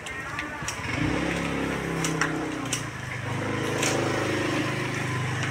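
A motor vehicle engine running close by. It comes in about a second in and holds steady, its pitch rising a little midway, with a few sharp clicks over it.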